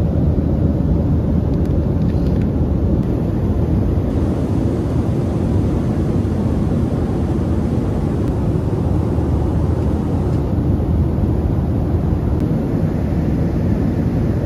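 Airliner cabin noise: a steady, loud rumble of the jet's engines and airflow heard from inside the passenger cabin, heaviest in the low range and unchanging throughout.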